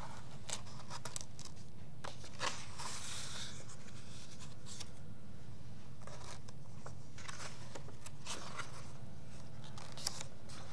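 Pages of a hardcover picture book being handled and turned: scattered short paper rustles and light taps, the longest rustle about three seconds in, over a low steady hum.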